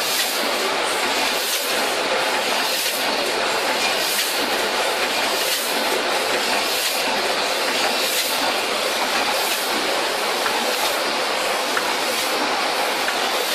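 Rotary pre-made pouch filling and sealing machine running: a steady mechanical din with a short, regular hiss of air about once a second.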